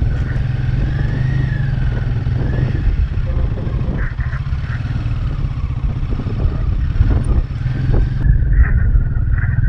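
Royal Enfield Himalayan 450's single-cylinder engine running steadily while riding, a deep pulsing rumble with a faint wavering whistle above it and a few knocks from the rough road.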